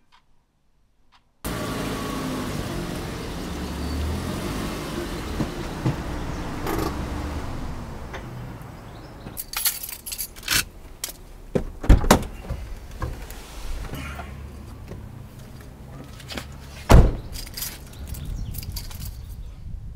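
A Nissan Qashqai's engine runs with a steady low hum, which thins about halfway through. Then come clicks and rattles like keys and door handles, and two heavy car-door thumps, one about twelve seconds in and one near the end.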